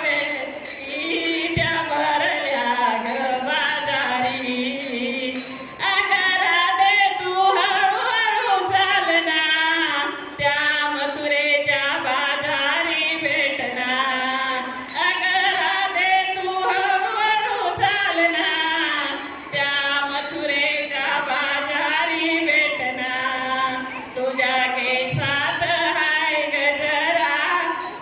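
An elderly woman singing a Marathi gavlan, a devotional folk song about Krishna, in a wavering, ornamented melody over a steady jingling rhythm of several strikes a second.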